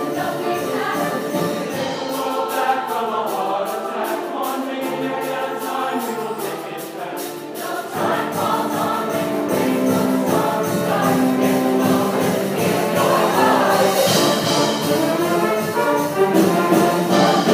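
Show choir singing in many voices over instrumental accompaniment. Quick ticking percussion runs through the first half. The bass drops out for a few seconds, then the full accompaniment comes back louder about eight seconds in.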